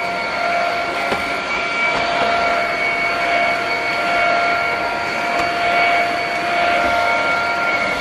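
Dreame XR cordless stick vacuum running while its floor head is pushed over carpet: a steady, high motor whine made of several tones over a rush of air.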